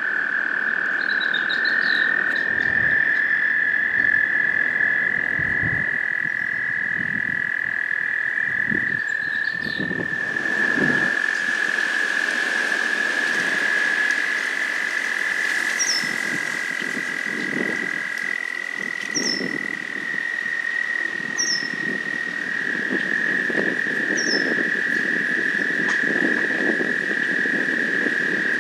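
Chorus of American toads trilling: several long, steady trills at slightly different pitches overlapping throughout, one starting or stopping every few seconds.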